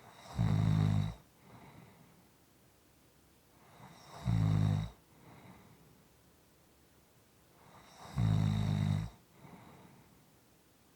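Snoring: three loud, low snores about four seconds apart, each followed by a softer breath out.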